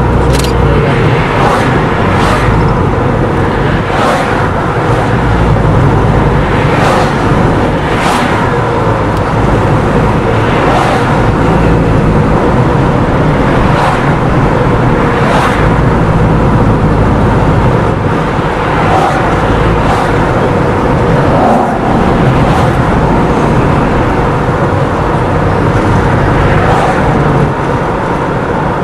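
A car driving along a road: steady engine and tyre noise, with a short sharp knock every second or two.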